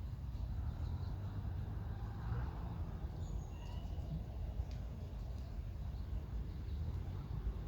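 Outdoor ambience at a lakeside: a steady low rumble with a couple of brief, high bird chirps a little past the middle.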